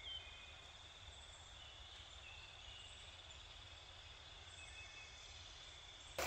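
Faint woodland ambience: a steady high insect drone with a few short bird calls, one louder chirp right at the start.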